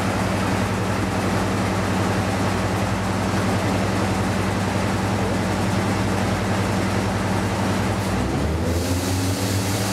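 Class 55 Deltic locomotive's twin Napier Deltic two-stroke diesel engines running steadily, a low drone over rail and wind noise, heard from an open carriage window behind it. The engine note shifts about eight and a half seconds in.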